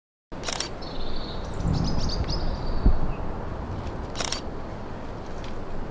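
Camera shutter clicking twice, about four seconds apart, over steady outdoor ambience. A bird gives a short chirping trill about a second and a half in, and a dull thump comes near the middle.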